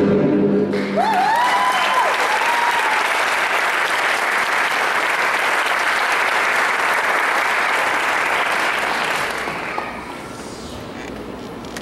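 Theatre audience applauding as the orchestral ballet music ends within the first second, with a few high rising-and-falling cheers over the clapping near the start. The applause dies down about ten seconds in.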